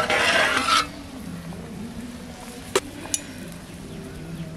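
A metal cooking pot is handled while the boiled elephant foot yam is checked for doneness. There is a short noisy rush of under a second at the start, then two sharp clinks close together about midway.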